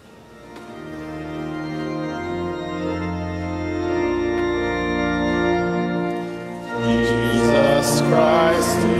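Organ playing sustained chords that swell in gradually. About seven seconds in, a woman's voice begins singing over it.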